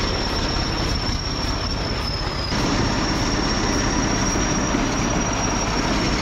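Heavy machinery running, a dense mechanical rumble with a steady high-pitched whine over it. The sound shifts abruptly about two and a half seconds in, then carries on a little louder.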